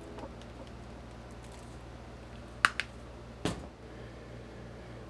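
Handling sounds on a stainless-steel prep table: two sharp clicks in quick succession about two and a half seconds in, then a duller knock, over a steady low hum.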